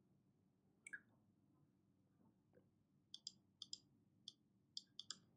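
Faint computer mouse clicks: one about a second in, then about nine more at uneven spacing over the last two seconds.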